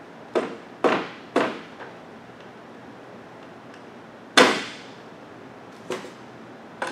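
Sharp clicks and knocks from hand work at an electrical box, likely folding its tabs: three quick ones, a louder one about four seconds in, and two lighter ones near the end.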